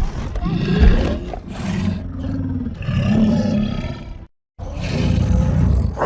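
Monster roar sound effects for the creature Suko as an adult: one long, rough roar swelling several times, cutting off abruptly, then a second roar beginning near the end.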